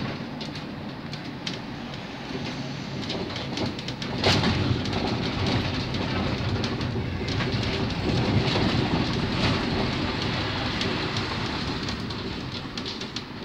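Inside a Škoda 31Tr trolleybus under way: steady running and road noise with frequent rattles and clicks from the fittings. It gets louder about four seconds in, with a sharp click, and eases off near the end.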